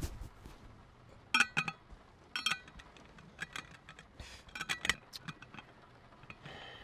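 A scattered series of light clicks and clinks, small hard objects knocking with a short metallic ring, coming in small clusters of two or three.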